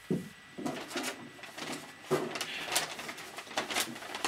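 Brown paper bag rustling and crinkling in bursts as a hand rummages inside it, with a brief low thud near the start.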